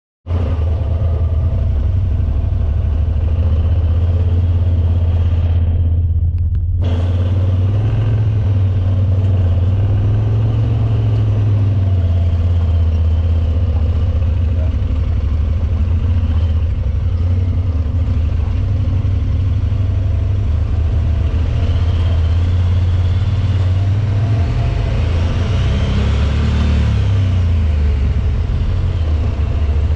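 Side-by-side UTV running at low trail speed, a steady low engine drone with some driveline and tyre noise, its pitch rising and falling briefly near the end.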